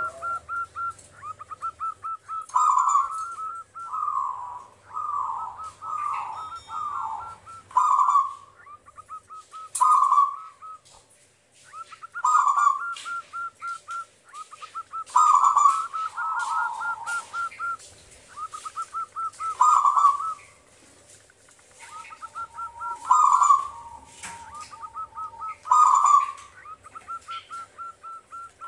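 Zebra dove (perkutut) singing its loud, long song: repeated phrases of rapid staccato coo notes, each with a louder, lower coo, returning every two to four seconds.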